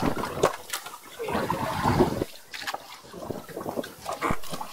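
Water splashing and sloshing, with scattered short knocks and clicks.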